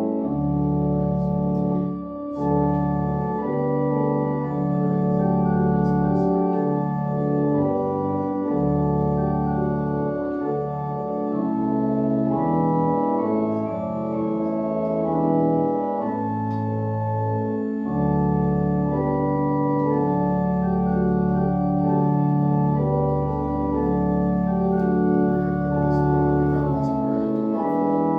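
Organ playing slow, sustained chords over held bass notes, the offertory music while the altar is prepared for communion.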